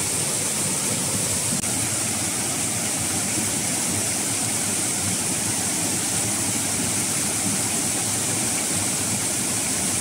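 Small waterfall cascade rushing over rocks: a steady rush of water close by.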